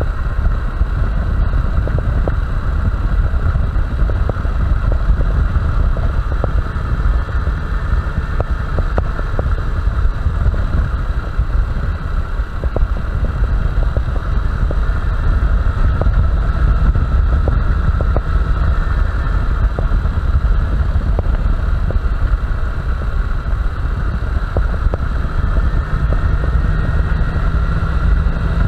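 Honda Bros 160 motorcycle running steadily while being ridden, its engine note mixed with wind rush and low rumble on the helmet microphone.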